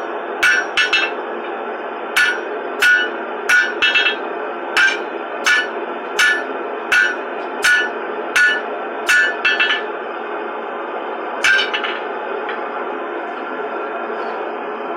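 Blacksmith's hammer striking hot iron on an anvil, forging a gate handle: a steady run of ringing strikes about every 0.7 seconds, some landing as quick doubles, that stops about twelve seconds in. A steady rushing noise runs underneath.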